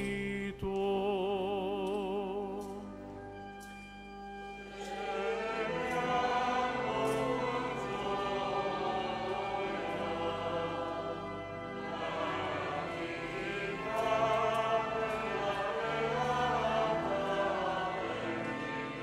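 Choir singing a liturgical introit, entering after a single held note with vibrato and swelling into full many-voiced singing from about five seconds in.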